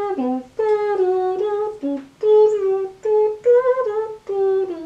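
A woman humming a tune: a string of short held notes that step up and down, with brief breaks between them.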